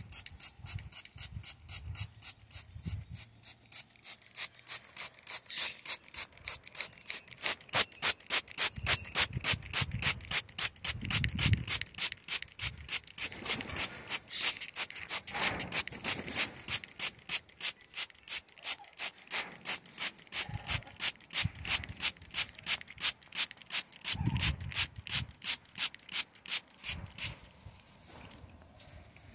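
Hand-held trigger spray bottle squeezed over and over, about three quick sprays a second, each a short hiss of mist. The spraying stops shortly before the end.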